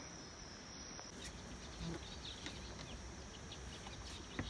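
Faint outdoor ambience: a steady high-pitched insect drone that stops abruptly about a second in, followed by faint scattered chirps and ticks.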